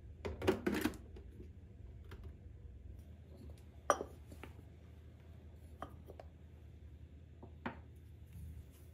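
Handling knocks of a Turkish coffee machine's pot against the machine and a stone countertop: a quick cluster of clatter right at the start, a sharp click about four seconds in, then a few faint taps.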